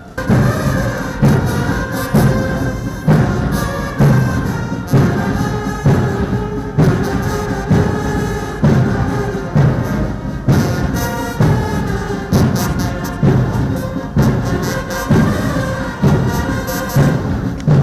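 Military brass band playing a march, with melody lines over a heavy drum beat about once a second.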